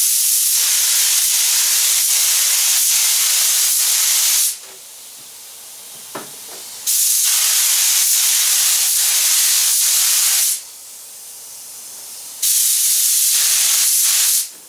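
Compressed-air spray gun spraying contact glue: a loud steady hiss in three passes, about four and a half, three and a half and two seconds long, with short pauses between.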